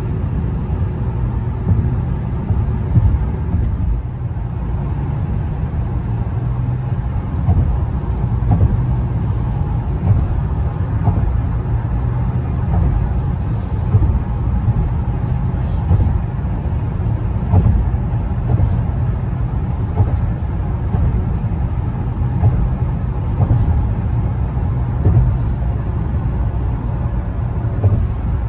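Steady low rumble of a car's tyres and engine at highway speed, heard from inside the car's cabin.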